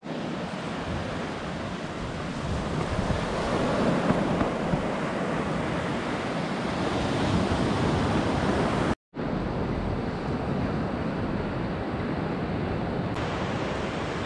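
Atlantic surf breaking and washing up a sandy beach, a steady rushing swell, with wind buffeting the microphone. The sound drops out for an instant about nine seconds in.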